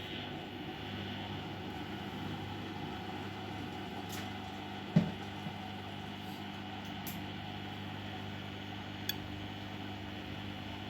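Bosch Maxx WFL 248Y washing machine running its wash, a steady motor hum as the drum turns, with one sharp knock about five seconds in.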